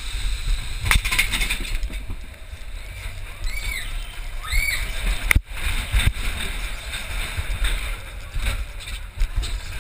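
Rushing wind on the camera microphone and the low rumble of the Matterhorn roller coaster car running along its track, with a couple of short high cries from riders about four to five seconds in.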